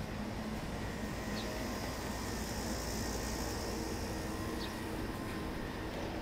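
Steady outdoor city street ambience: a low, even hum of traffic, with two faint short high chirps about three seconds apart.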